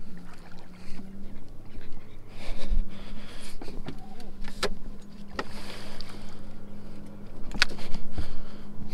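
A bass boat's electric motor hums steadily. Sharp knocks and clicks of rod and landing-net handling on the deck come about halfway through and again near the end.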